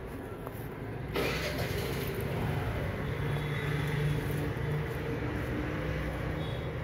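A motor vehicle's engine running: a steady low hum, with a rush of noise that comes in sharply about a second in and holds.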